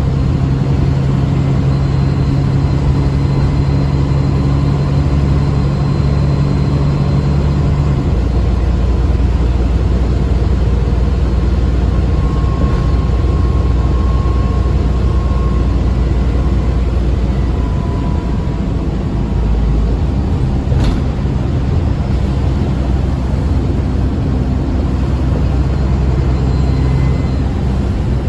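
ADL Enviro 400 Trident double-decker bus running, its diesel engine droning steadily with a faint turbo whine above it. About 8 seconds in, the engine note drops lower.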